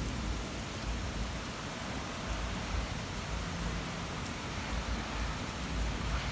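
Steady rain falling in a thunderstorm, an even hiss with an uneven low rumble underneath.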